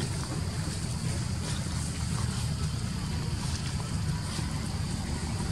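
Wind buffeting the microphone outdoors: a steady low rumble with a faint hiss above it, broken by a few faint short ticks.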